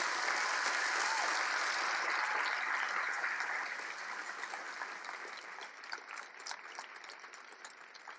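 Audience applauding, loudest at the start, then thinning out into scattered individual claps and fading away.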